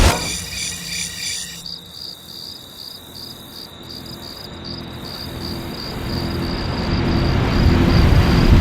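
Cricket chirping: a steady high-pitched chirp repeating at a regular pace. A low rumble swells louder through the second half.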